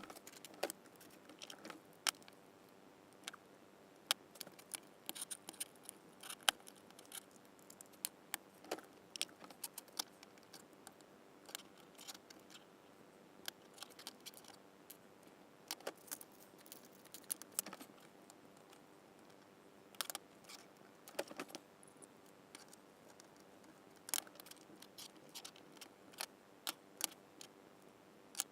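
Irregular small clicks and metallic taps of M4 steel nuts and 3D-printed plastic parts being handled, as the nuts are fitted into slots printed in the parts.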